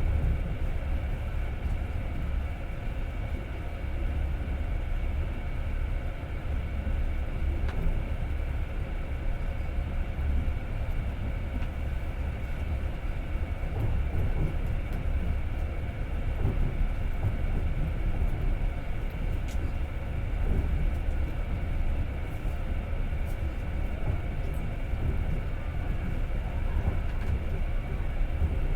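Passenger train running, heard from inside the carriage: a steady low rumble of the wheels on the rails.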